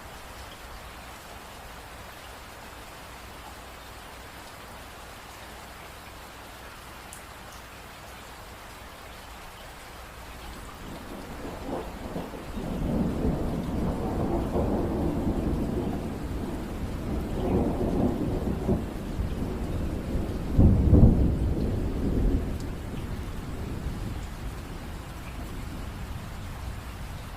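Steady rain, then a long roll of thunder that builds from under half-way in, peaks in a loud clap about three-quarters of the way through, and rumbles away back into the rain.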